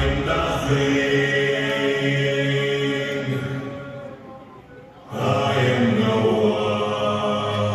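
Choral chant with long held notes, played as a recorded intro over the hall's PA with no band playing yet. One chanted phrase fades out about four seconds in, and a second swells in about a second later.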